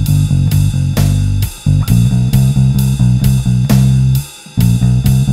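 Squier Bronco electric bass with a Nordstrand NM4v pickup, played through a Seymour Duncan Studio Bass Compressor: a plucked bass line over a drum track with cymbal hits about twice a second. The bass notes stop briefly twice, about a second and a half in and again near four seconds.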